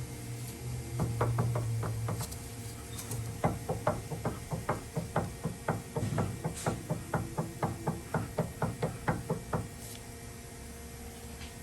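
Repeated metallic clunking, about three to four knocks a second for some six seconds, from a worn, loose rear sway bar link on a 2007 Dodge Dakota being worked back and forth. The clunk is the sign of the worn link.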